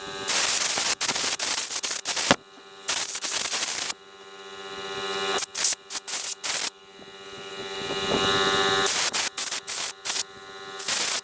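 Makita CL182FD cordless vacuum cleaner's motor running in a string of short, loud bursts that stop abruptly, over a steady hum.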